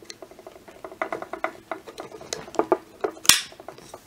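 Wildey Survivor pistol grip panel being slid onto its stainless steel frame: a run of small clicks and rattles of the panel and its metal clip against the frame, then one louder snap with a brief scrape a little after three seconds in as the grip slides into place.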